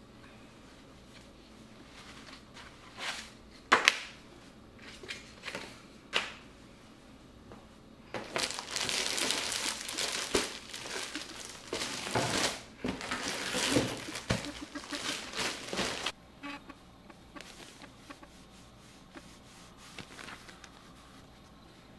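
Plastic packaging crinkling as bedding is unpacked: a few short rustles and taps at first, then about eight seconds of dense crinkling in the middle that stops abruptly.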